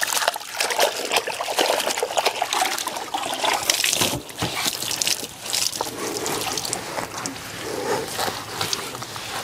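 Water sloshing and splashing in a plastic bucket as a wash mitt is swished around in it. A few seconds in, water drips and splatters off the soaked mitt as it is rubbed along the car's lower side panel.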